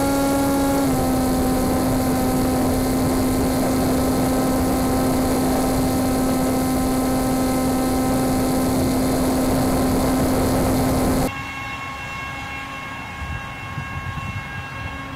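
RCPowers F-22 foam RC plane's electric motor and propeller whining at a steady pitch over a rush of wind noise, the pitch dipping slightly about a second in. About eleven seconds in the loud rush cuts off abruptly, leaving a quieter, cleaner motor whine.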